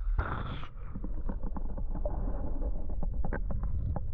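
Creek water heard through a submerged camera: a low, muffled rumble of moving water with a short rushing splash at the start, then many sharp clicks and knocks scattered through it.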